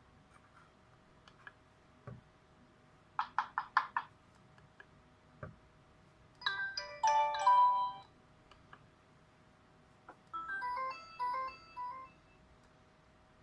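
Huawei MomoDesign MD Touch phone's speaker playing short ringtone snippets one after another. First comes a run of about five quick beeps, then a brief loud melodic jingle, then a softer melodic phrase, with faint clicks in between.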